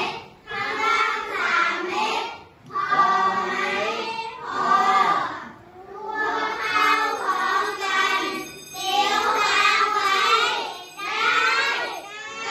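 A group of children's voices in unison, in sing-song phrases of a second or two with short breaks between them.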